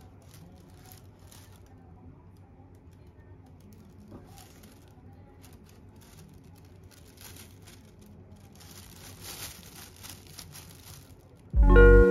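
Thin plastic garbage bag rustling and crinkling faintly as it is handled on a folding bag stand, in scattered bursts that get busier near the end. Just before the end a plucked guitar chord comes in loudly and rings on.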